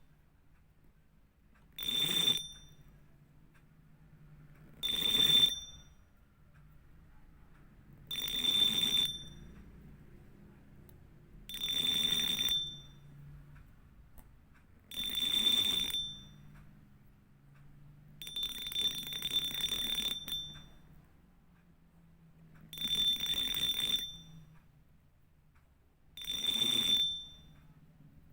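Fishing reel drag buzzing as line is pulled off in short runs: eight separate bursts about three seconds apart, each lasting around a second, with a longer two-second run about two-thirds of the way through.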